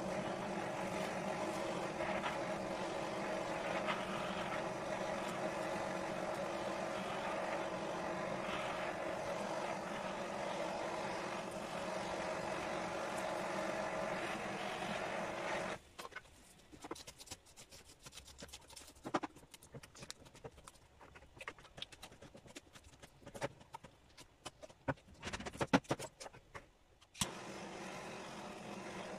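Handheld butane blow torch running steadily, then cutting out about halfway through; in the quieter stretch that follows there are scattered clicks and pops, and the torch runs again near the end.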